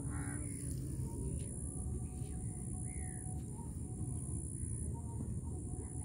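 Wind buffeting the microphone with a steady low rumble, and a few bird calls over it: a harsh call right at the start and a short call about three seconds in.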